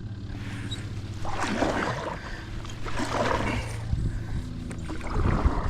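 Kayak paddle strokes swishing and splashing in the water, three strokes roughly every second and a half to two seconds, over a steady low hum.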